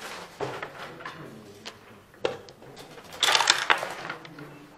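Backgammon checkers and dice clicking on a wooden board: a few separate clacks, then a short, louder clatter about three seconds in.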